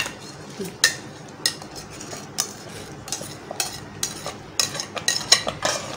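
Metal slotted spoon scraping and knocking against a glass bowl as thick raw-mango pulp is scraped out into a pot of hot water. It makes irregular sharp clinks and clicks, about one a second, over a soft background.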